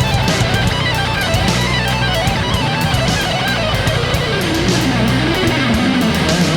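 Background rock music: an electric guitar playing a wavering lead melody over bass and a steady drum beat.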